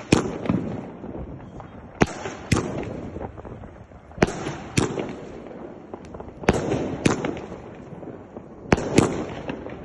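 Fireworks going off: sharp bangs, mostly in pairs about half a second apart, every two seconds or so, over continuous crackling.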